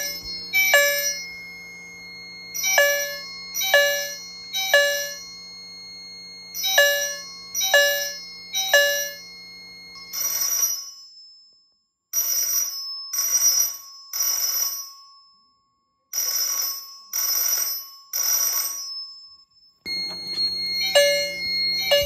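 Fire alarm chimes sounding on alarm in a repeating pattern of three strokes about a second apart, with a pause between groups. Struck, ringing chime tones sound over a steady hum. From about 10 to 20 s a loud, bell-like buzzing vibrating chime, the Simplex 2902-9207, carries the same pattern before the ringing chime tones return.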